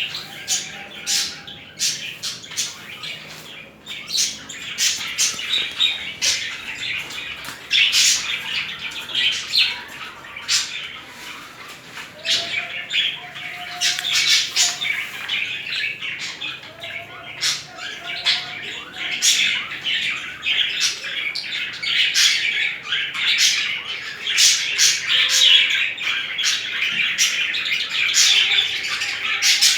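Budgerigars chattering and warbling in courtship: a steady, busy run of squawks, chirps and clicks, with a few short whistled notes.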